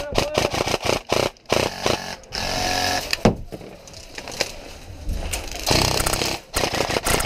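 Airsoft rifle firing: quick shots in the first second or so, a sustained full-auto burst buzzing at a steady rate a little over two seconds in, then a reload pause, and rapid firing again from near the end.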